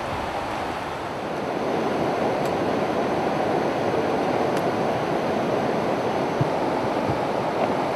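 Steady rushing of flowing river water, becoming louder about a second and a half in.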